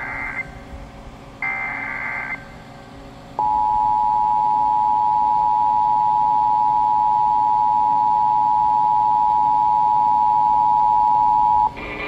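Emergency Alert System tornado warning heard through a Sony portable radio's speaker. First come two short bursts of the coded SAME data header, about a second each. Then the steady two-tone attention signal holds for about eight seconds and cuts off sharply just before the end.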